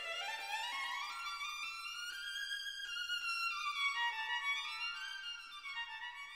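Violin music: a melodic run of notes climbing steadily in pitch, then descending after about three seconds.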